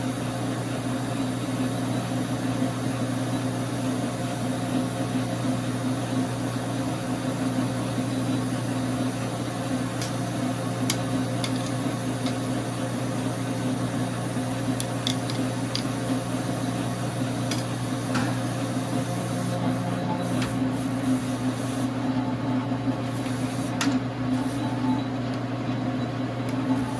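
Dar Sin 12x37 gap bed lathe running steadily under power feed during a turning pass, its single-phase motor and drive giving an even hum. A few light ticks sound here and there.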